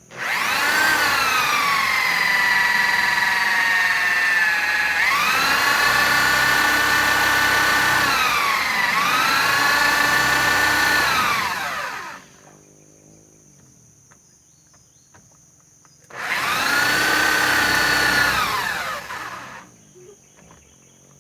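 Electric drill boring a hole into a laminated mahogany block: a long run of about twelve seconds whose motor whine drops in pitch as it bites and climbs back when eased, then a shorter run of about three seconds that winds down.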